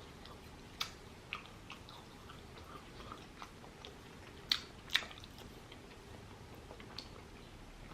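A person chewing food, with soft mouth clicks and smacks. Two sharper ones come around four and a half and five seconds in.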